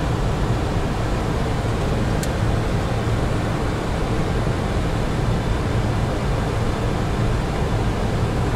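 Steady flight-deck noise of a Boeing 737NG on final approach: airflow and engine noise, with the aircraft in landing configuration, gear down and flaps 40. A faint brief click about two seconds in.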